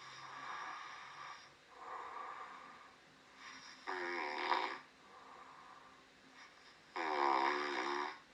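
A man's snoring played back from an overnight sleep recording: four snores, two faint ones, then two louder buzzing ones about 4 and 7 seconds in. He slept with a mouth patch holding his mouth shut, and finds the snoring softer and quieter with it on, though not gone.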